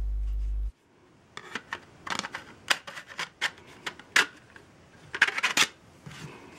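A low steady hum cuts off under a second in. Then an orange plastic filter sheet is handled and pushed into the front slots of a 76-LED video light, giving a run of sharp plastic clicks and rattles over about four seconds.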